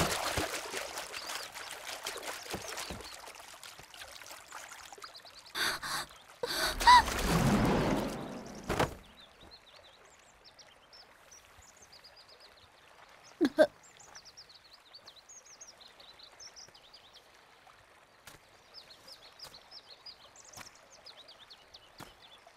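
Rushing, cascading water that fades over the first several seconds, with two louder surges of water noise in the middle stretch. Then it goes quiet apart from two quick knocks, and faint small birds chirp off and on.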